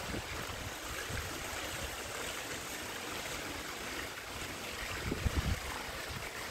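Steady outdoor rushing noise, with wind gusting on the microphone a little after five seconds in.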